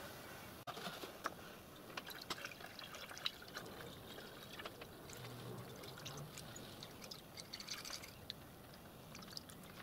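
Water poured from a plastic container into a miniature steam locomotive's water tank: a faint trickle with many small splashes and drips as the tank fills.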